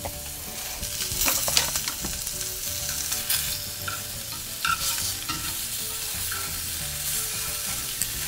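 Pork chops sizzling as they sear in a hot cast-iron skillet. Metal tongs click and scrape against the pan several times as the chops are turned.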